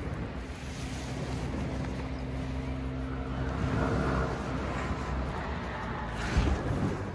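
A vehicle's engine running steadily under a rushing, wind-like noise, with a low hum that fades out about four seconds in. A short knock comes near the end.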